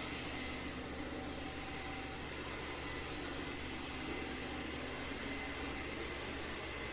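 Robot vacuum cleaner running: a steady whir of its suction fan and brushes with a faint high whine.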